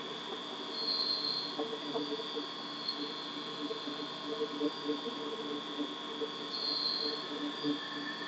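CNC vertical machining centre milling a metal shaft held on a rotary fourth axis under flood coolant: a steady high whine over uneven lower tones from the cut and the wash of coolant.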